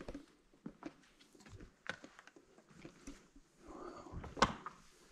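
Footsteps and small scattered knocks on slate rubble underfoot in a mine chamber, with a short scrape and then a louder knock about four and a half seconds in.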